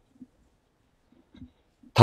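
Faint footsteps of a person walking on a paved path, a few soft low thuds, then a man's voice starts near the end.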